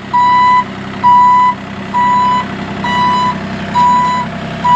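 Bobcat compact excavator's travel alarm beeping steadily, a single high tone about once a second, with the machine's diesel engine running underneath.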